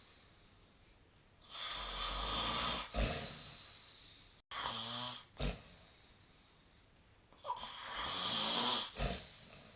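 A person snoring in their sleep: three snores about three seconds apart, each a long noisy breath ending in a short, louder burst, the middle one shorter and with a low pitched tone.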